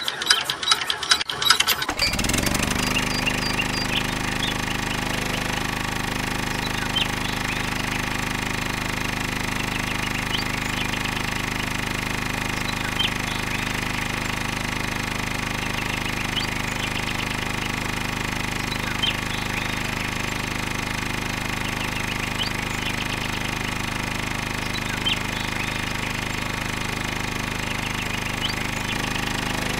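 Small electric hobby motor driving a miniature chilli-grinding machine by a belt. It starts with a burst of rapid crackling clicks as the wire is touched to the motor's contact. The motor spins up about two seconds in and then runs with a steady hum, with faint ticks every few seconds.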